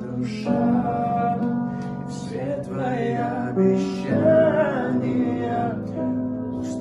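Pop song with a vocal melody over sustained chords; guitar comes through near the end.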